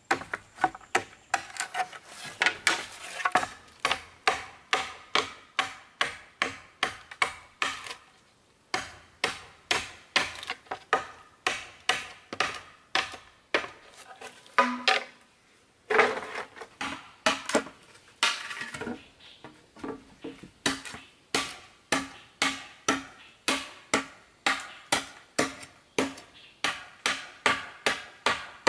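Large knife blade chopping into bamboo, a steady run of sharp knocks about two to three strokes a second, with a couple of short pauses and one louder knock about halfway through.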